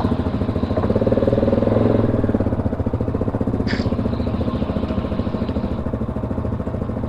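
ATV engine running while riding, picking up speed over the first couple of seconds and then running steadily.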